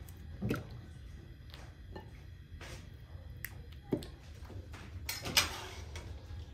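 Roasted chestnuts being peeled by hand: scattered small cracks and clicks of the shells, with a few light knocks, the loudest a short scrape about five seconds in.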